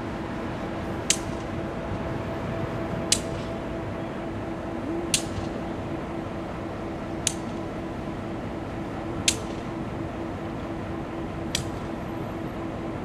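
EMD GP38 diesel locomotive's 16-cylinder two-stroke engine idling with a steady hum, the train standing still. A short, sharp click sounds about every two seconds.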